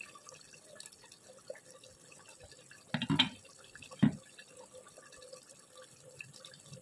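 Chicken gravy simmering in a clay handi, its bubbles popping in a soft, irregular patter. Two louder thumps come about three and four seconds in.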